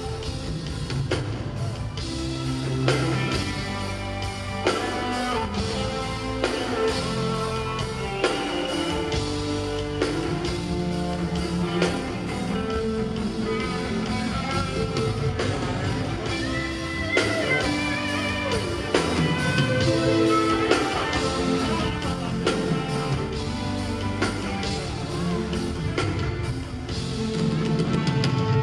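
Dancehall/reggae music played loud at a live show: an instrumental passage with a steady beat and no lyrics.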